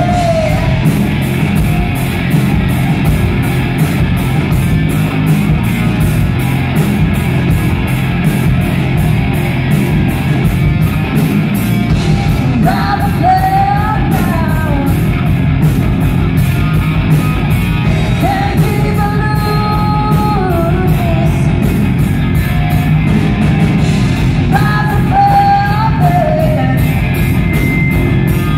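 Live rock band playing: a woman singing over electric guitar, bass guitar and a drum kit, with a steady cymbal beat. Her sung phrases come and go, with long held notes about 13, 18 and 25 seconds in.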